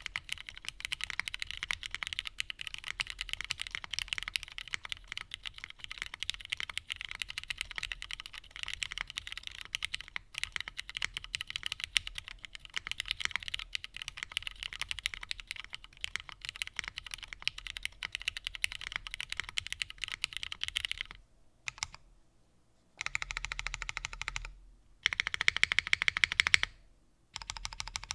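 Fast continuous typing on a plateless custom mechanical keyboard with lubed, filmed retooled Cherry MX Black linear switches and GMK keycaps. The typing stops about three-quarters of the way through, followed by short bursts of rapid keystrokes, the loudest near the end.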